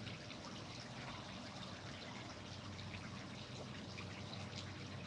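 Faint crumbling and rustling of potting soil as a succulent is worked down into an arrangement, with small scattered ticks over a steady low hiss.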